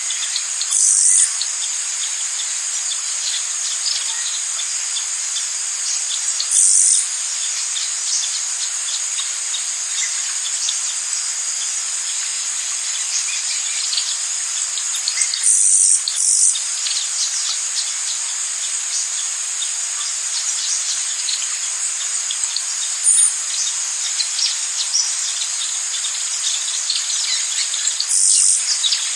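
Rainforest insect chorus: a dense, steady, high-pitched trilling, with a short, louder buzz every five to seven seconds, two of them close together about halfway through. Faint bird chirps sound now and then behind it.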